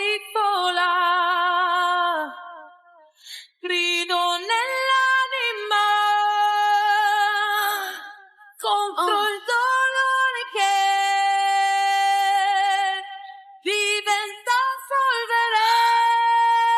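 Background music: a woman's voice singing long held notes with vibrato, in phrases broken by short pauses, with little or no accompaniment.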